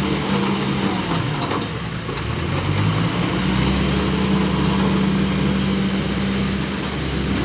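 Bobcat B900 backhoe loader's diesel engine running steadily, its pitch sagging briefly about two seconds in before picking up and holding again.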